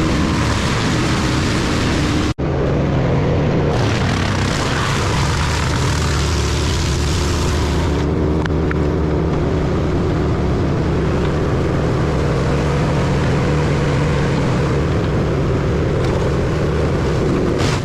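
Large wood chipper running under load: a steady engine drone with a broad rushing noise over it. The sound drops out for an instant about two seconds in, then carries on.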